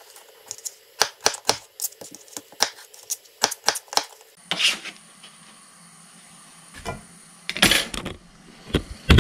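Chef's knife chopping a potato into chunks on a plastic cutting board: quick sharp chops, about three to four a second, for the first four seconds. After that come a few louder knocks and clatters.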